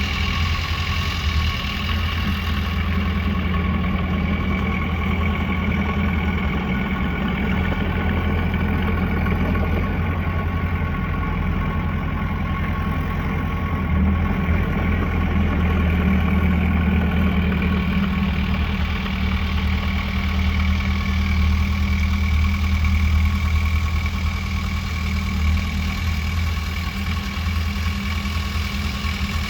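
Diesel engine of heavy earthmoving machinery running steadily with a deep, even drone and a faint steady whine above it.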